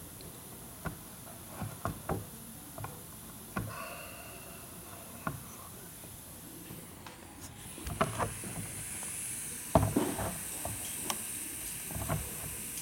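Scattered clicks and knocks of a motorcycle front brake caliper and its tight pads being handled and worked loose in a drain pan, sparse at first and busier and louder in the second half. A faint hiss rises about halfway.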